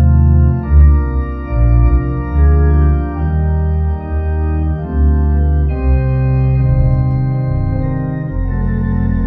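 Organ music: full sustained chords over a bass line that steps to a new note about every second.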